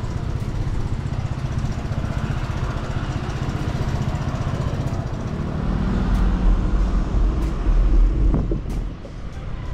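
Road traffic noise, a steady low rumble that swells for a couple of seconds in the second half and then drops away.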